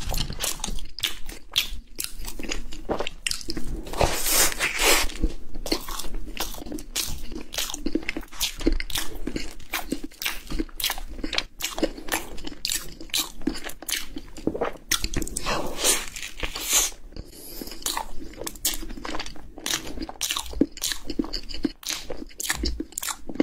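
Close-miked eating sounds: biting and chewing a red velvet Swiss roll with whipped cream. A dense run of short, crackly, wet mouth clicks and smacks.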